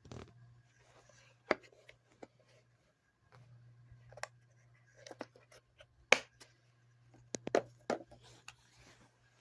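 Handling of a plastic drill-bit set case: a string of sharp clicks and knocks at uneven intervals, the loudest about six seconds in and several close together near the end, over a faint low hum.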